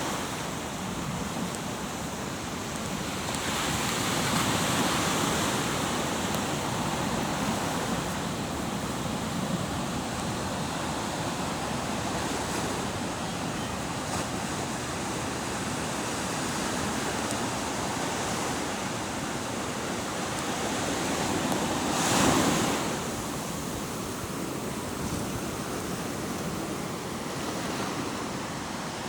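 Ocean waves washing in as a continuous rush, swelling a few seconds in and with one louder surge about two-thirds of the way through.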